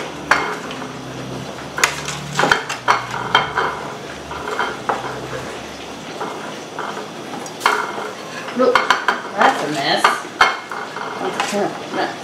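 Breaded chicken pieces frying in a pan of hot oil. The oil sizzles under repeated clatters of a utensil against the pan and dishes.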